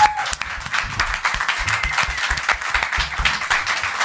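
Audience applauding after a song, a dense steady patter of many hands clapping, with a brief high tone right at the start.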